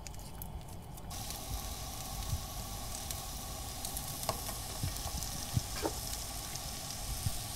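Sliced onions frying in oil in a hot frying pan: a steady sizzle that sets in about a second in, with a few faint clicks. The sizzle shows the pan is hot enough and the onions have started to fry.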